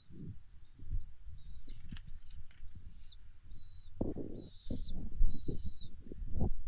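Small pet bird chirping over and over with short, similar calls, about two a second, over low rustling and soft thumps that get busier in the second half.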